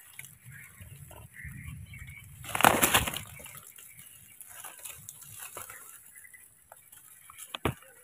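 Leaves rustling close to the microphone, with one loud crackling burst of rustling about two and a half seconds in and a couple of sharp clicks near the end.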